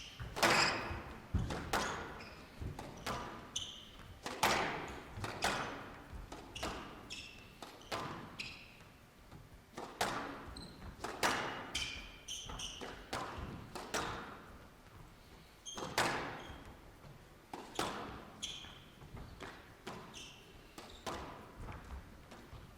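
Squash rally: the ball cracking off rackets and the court walls, a sharp hit every half-second to second, each with a short ringing tail, mixed with brief squeaks of players' shoes on the court floor.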